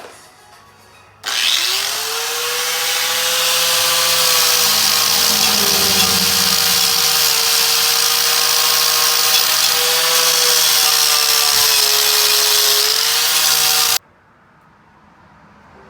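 Power tool spinning a wire wheel against the brake backing plate's friction spots, the pads where the shoes ride, scrubbing them clean. It spins up with a rising whine about a second in, runs steadily with a harsh scratching hiss over the whine, and cuts off suddenly near the end.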